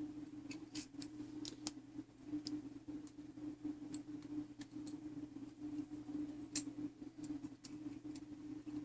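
Irregular light clicks and taps of small metal clock-movement parts and hand tools being handled during reassembly, over a steady low hum.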